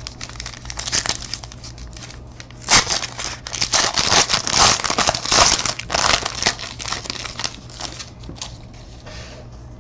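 A trading card pack being torn open by hand, its wrapper crinkling and tearing. The crinkling is heaviest from about three to seven seconds in, with lighter rustling before and after.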